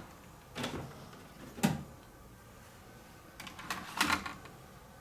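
A few light clacks and knocks in three short groups, the last a quick run of several: hard, light items being handled at a digital weighing scale, such as laptop motherboards set on it or its keys pressed.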